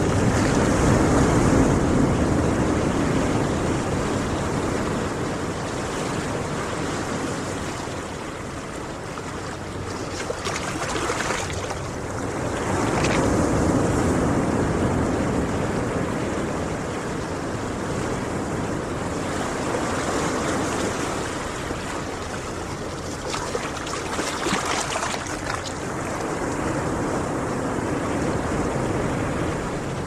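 Ocean surf breaking on a beach: a steady wash of waves that swells and ebbs in slow surges every several seconds.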